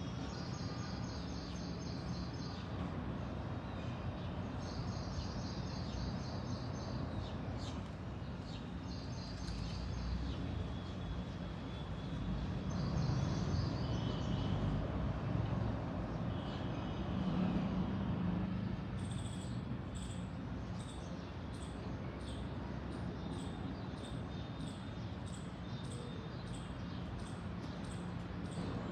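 Small birds singing: short high trilled phrases repeated every few seconds. About two-thirds through, a regular series of high, evenly spaced notes, about one and a half a second, takes over. A steady low rumble runs underneath.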